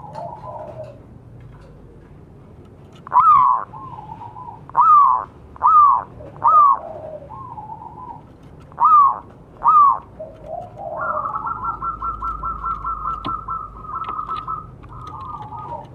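Zebra dove cooing. Soft rolling coos run between six loud, ringing notes, each rising then falling, spaced about a second apart over the first ten seconds. About eleven seconds in, the notes run into a fast rolling trill that lasts about four seconds and ends in a few falling coos.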